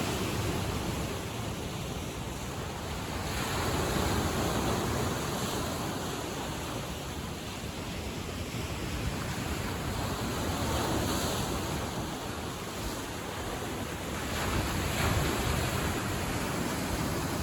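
Waves washing onto a shore in a steady hiss that swells and eases every few seconds as each wave breaks.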